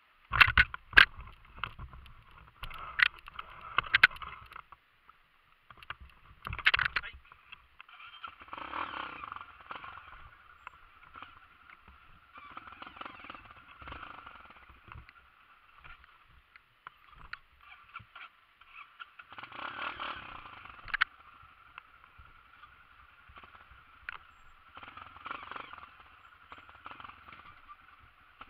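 Honda CRF enduro dirt bike ridden slowly down a rough, rutted trail, its engine running low and thin as heard through a bike-mounted camera, with sharp knocks as the bike and camera jolt over the ruts, most of them in the first several seconds.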